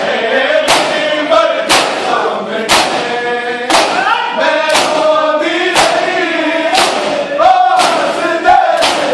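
A crowd of men chanting a noha in chorus while beating their bare chests in unison (matam). The loud hand-slaps fall about once a second, in time with the chant.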